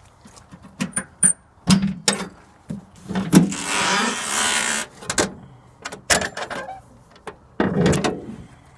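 Hood of a John Deere 770 compact tractor being unlatched and swung open by hand: a series of sharp clicks and knocks, with a scraping rush lasting about a second and a half in the middle and a few more knocks near the end.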